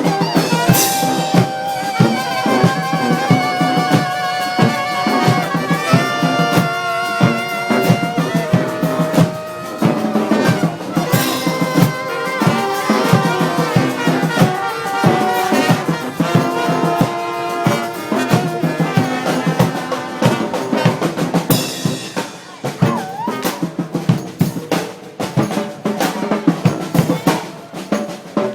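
A brass street marching band playing live, horns carrying a melody over a driving drum beat. Toward the end the horns thin out and the drums carry on largely alone.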